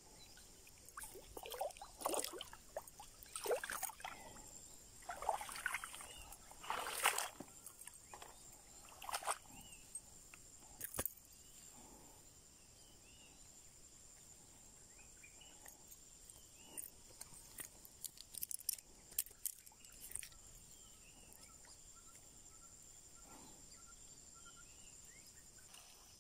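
Jungle riverside ambience with a steady high-pitched insect drone. Several loud bursts of handling noise break it in the first ten seconds, with scattered clicks and faint chirps later.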